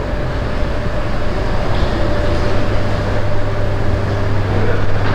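Vehicle running: a steady low rumble of engine and road noise, with a faint steady hum over it.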